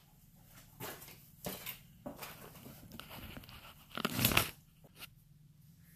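Handling noise of a phone camera being picked up and moved: a few short clicks and rustles, then a louder rubbing scrape about four seconds in.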